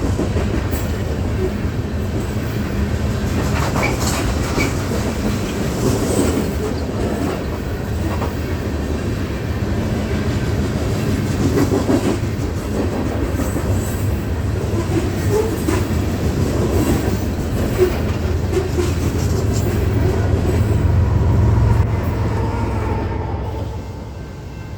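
Coal train's freight cars rolling past on the rails, a steady loud rumble with wheels clicking over rail joints. The noise falls away near the end.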